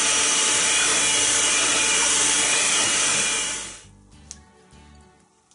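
Electric hand mixer running steadily, its beaters whipping a liquid dough mixture in a stainless steel pot, then switched off about three and a half seconds in.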